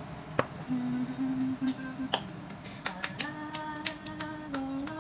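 Several sharp clicks and hand claps, spaced unevenly, over a slow melody of long held notes that steps up in pitch about three seconds in.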